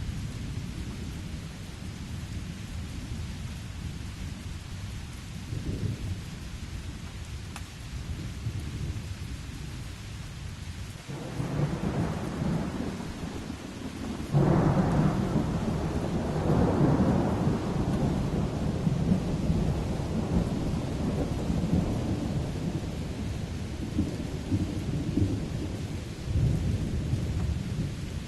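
Steady rain falling with thunder: a rumble builds about 11 seconds in, a sudden louder clap follows a few seconds later and rolls on for several seconds, and another low rumble comes near the end.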